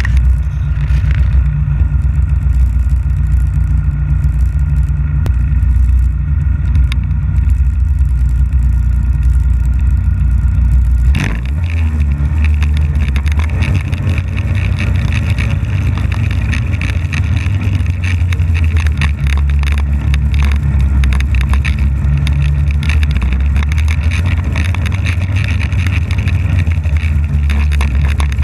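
Polaris snowmobile engine running steadily as the sled is ridden over snow, a constant low drone; the sound changes abruptly about eleven seconds in.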